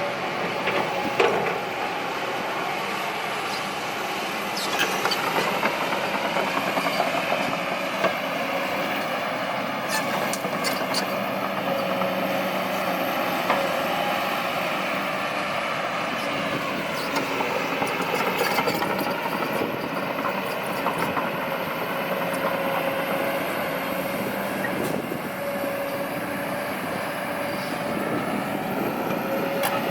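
Heavy diesel machinery running continuously under load, with a high whine over the engine. The engine note shifts in pitch about two-thirds of the way through, and a few brief knocks come about a third of the way in.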